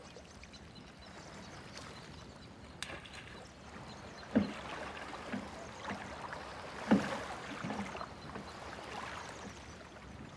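Aluminum rowboat being rowed: oars knocking in the oarlocks and against the hull with a few splashes, the two loudest knocks about four and seven seconds in, over a faint steady wash of water.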